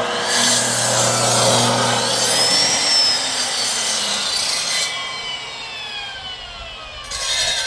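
Grinder-type cutter fitted with a saw blade, cutting through wood for firewood. It starts suddenly at full speed, its pitch slides downward through the middle as the blade works through the cut, the cutting noise drops off about five seconds in, and it picks up again near the end.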